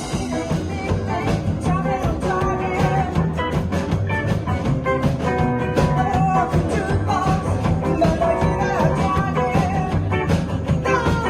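Rockabilly band playing rock and roll live, with a steady driving drum beat under guitar and shifting melody lines.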